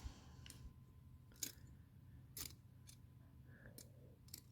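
Faint, scattered clicks of plastic puzzle pieces being handled, about one a second, over near silence.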